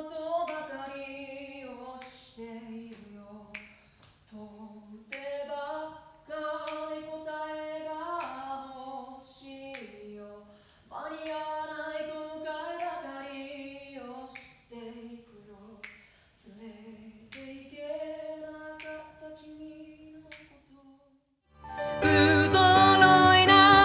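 A woman singing a Japanese song a cappella, keeping time with a steady beat of finger snaps. About 22 seconds in, loud piano music with singing cuts in.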